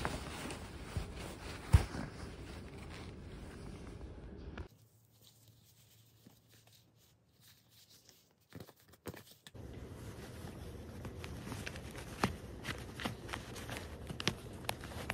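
Handling noise of a slim card wallet being worked in and out of a jeans pocket: denim rustling with small clicks and taps, one sharp click about two seconds in the loudest. A nearly silent stretch in the middle holds only a few faint clicks.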